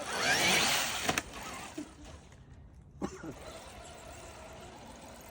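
Traxxas radio-controlled off-road truck driving, its electric motor whine rising and falling, loudest in the first second, with a sharp knock about a second in and another about three seconds in, then quieter.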